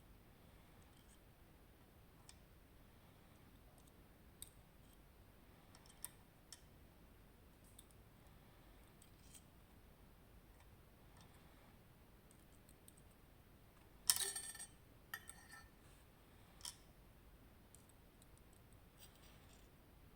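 Small metal parts of an Abloy Sentry disk-detainer lock clicking as it is taken apart: scattered faint clicks, with a louder burst of rapid rattling clicks about fourteen seconds in and a sharp click shortly after.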